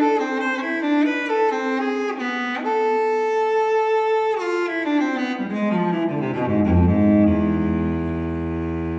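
Background music on bowed strings: a melody of short notes, then one long held note about three seconds in, after which the line slides down into low sustained bass notes.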